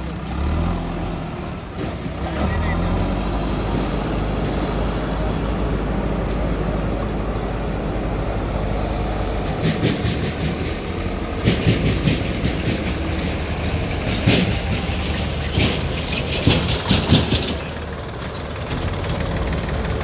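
Diesel engines of a JCB backhoe loader and a farm tractor running with a steady low drone. From about halfway, several seconds of rattling, clanking knocks.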